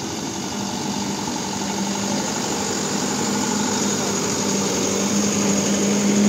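Truck engine running as the truck rolls slowly past at close range, getting louder as it comes alongside, over a steady low hum.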